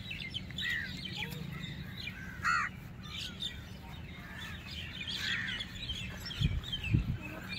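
Birds calling: crows cawing among many short chirps and tweets, with two dull low thumps near the end.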